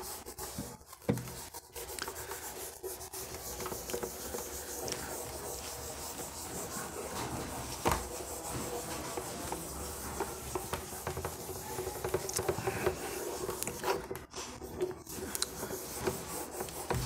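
Whiteboard duster rubbing back and forth over a whiteboard, wiping off marker writing, with one sharp knock about eight seconds in.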